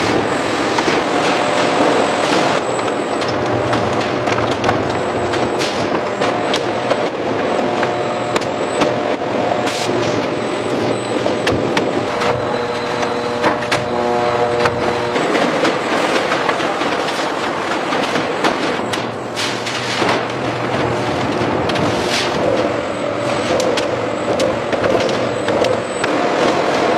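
Factory machinery running continuously, a dense clatter with frequent clicks and knocks over a steady hum, with faint steady tones coming and going.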